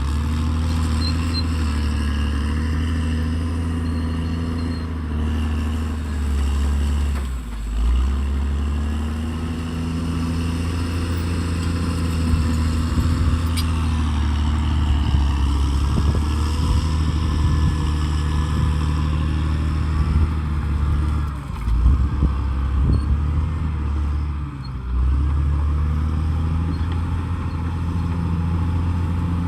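Caterpillar D6R XL bulldozer's diesel engine running steadily at working speed, its deep note dipping briefly in pitch three times, about 8, 21 and 25 seconds in.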